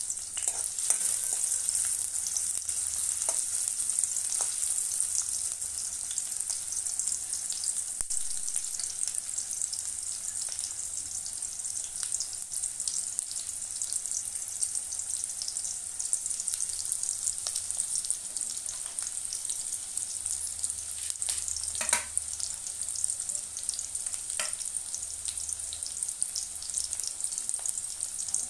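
Sliced onions and chillies frying in hot oil in a kadhai: a steady sizzle full of fine crackling, with a couple of sharper pops near the end.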